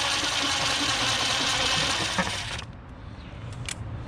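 Power drill running with a step drill bit, cutting through the plastic bumper; it stops about two-thirds of the way in, leaving a few faint clicks.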